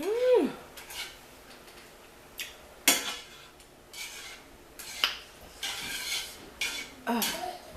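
Utensils clinking and scraping against a noodle bowl while eating ramyon, with a few sharp clicks a couple of seconds apart. A brief falling cry is heard at the very start.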